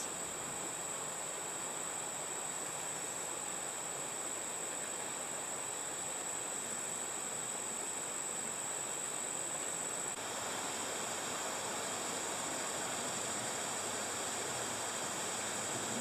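Steady outdoor ambience: a soft, even rush of creek water filtering through rocks, with a steady high-pitched insect drone over it that shifts a little about ten seconds in.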